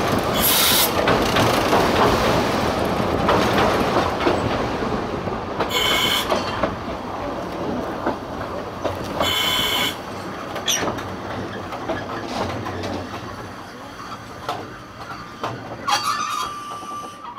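Ikawa Line passenger train running on rails over a bridge and slowing into a station: steady wheel-and-rail noise with short, high wheel squeals about half a second in, around six seconds and near ten seconds. The noise fades as the train slows, and a brief steady squeal comes near the end as it stops.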